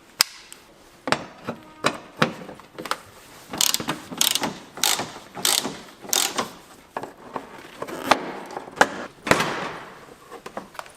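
Hand tools undoing the front bumper's fasteners on a car: short, irregular bursts of clicking and rattling.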